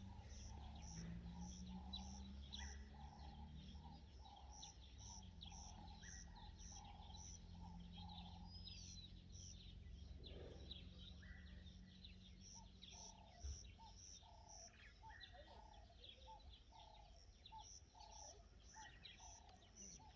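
Faint outdoor mountain ambience: birds chirping, with short calls repeating about twice a second over a low background rumble.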